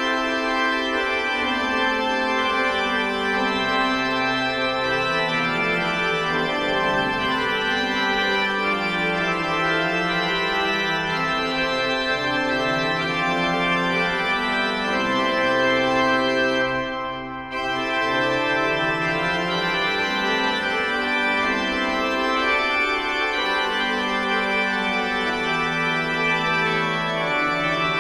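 Zanin pipe organ built in 2001 playing a set of keyboard variations in sustained, many-voiced chords and running lines. There is a brief drop in the sound about seventeen seconds in, and then the playing goes on.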